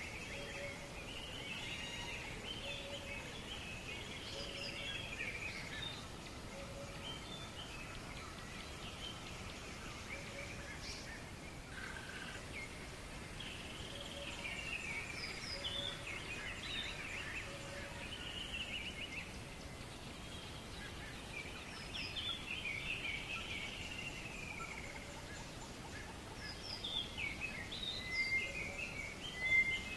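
Birds chirping and twittering over a faint steady outdoor hiss, with a soft lower call repeating every second or two, and a few louder, sharper chirps near the end.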